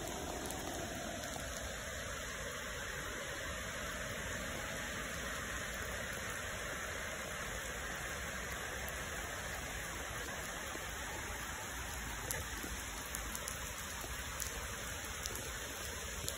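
Steady rain falling on a puddled tarmac path and wet grass: an even hiss with single drops ticking close by, more of them in the second half.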